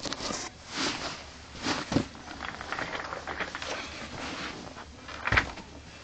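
Footsteps of sneakers on carpet: a few soft thuds and shuffling rustles as the feet are moved and set down, the loudest thud about five seconds in.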